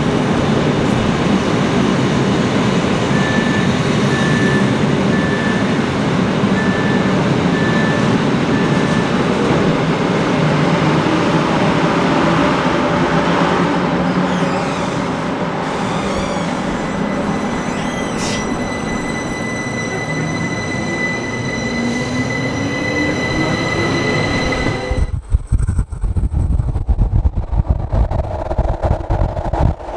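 Rhaetian Railway train pulling out of a station, heard from an open window: steady rumble of wheels and running gear, with a row of short beeps in the first few seconds. Later a slowly rising motor whine and a steady high wheel squeal come in as it gathers speed. About 25 s in, wind buffeting the microphone takes over.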